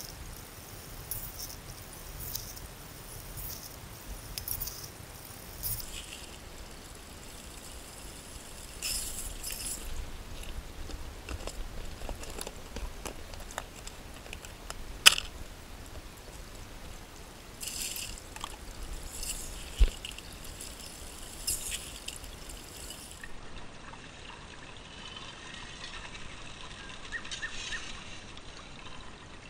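Creek water running through a gold sluice box, with scoops of gravel and water poured into it and rattling in short spells. A sharp clack about halfway through and a low knock a few seconds later.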